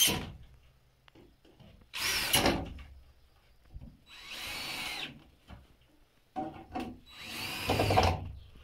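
Cordless drill-driver run against a concrete-block wall in about four short bursts, a couple of seconds apart, the motor's pitch rising and falling within a burst.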